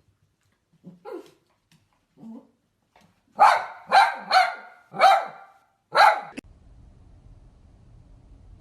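A dog barking: a few soft sounds, then five loud, sharp barks in quick succession. Near the end a steady low hum takes over.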